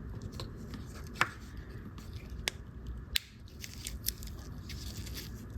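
A few small, sharp metal clicks and taps as a pocket watch's mainspring barrel cap is pressed back onto the barrel with tweezers and tools, the loudest about a second in.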